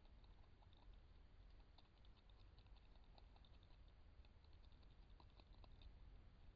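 Faint, irregular small clicks and crunches of a European beaver gnawing bark off willow twigs, over a low steady hum.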